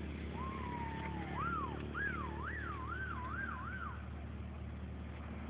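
A single whistle-like tone wavering up and down like a siren for about three and a half seconds, first held and slightly falling, then swinging up and down faster and faster. It sits over a steady low background rumble.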